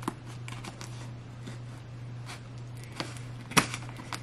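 Scissors snipping into a package's plastic wrapping and tape in a few sharp clicks, the loudest about three and a half seconds in, over a steady low hum.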